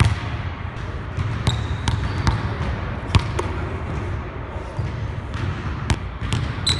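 Basketball bouncing on a hardwood gym floor, heard as irregular sharp knocks during dribbling and a layup, with a few brief high sneaker squeaks.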